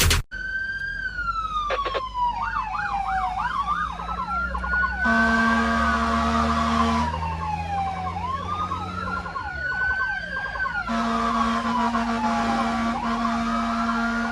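Emergency vehicle siren, most likely the fire brigade's response vehicle, wailing: the pitch slides slowly down and back up, with a brief stretch of fast yelps a few seconds in. Twice a steadier low tone with hiss joins it for about two seconds.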